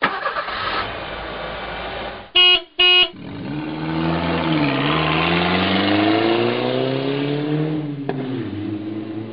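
A car horn beeps twice, then a car engine accelerates, its pitch rising steadily with a brief dip about four and a half seconds in and a drop about eight seconds in.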